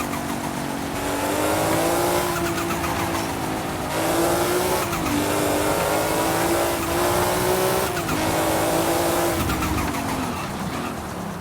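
Big turbocharged engine running under changing throttle, its pitch rising over the first couple of seconds, dipping about five seconds in and falling away near the end, with turbo flutter in bursts each time the throttle comes off.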